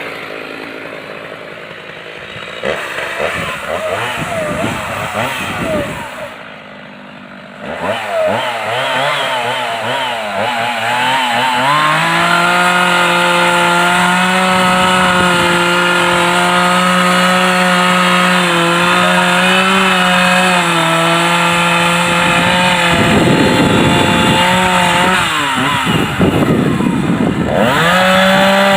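Chainsaw running, its engine pitch wavering up and down for the first several seconds, then held at a steady high speed for about ten seconds. Near the end the pitch breaks up and wavers before rising back to speed.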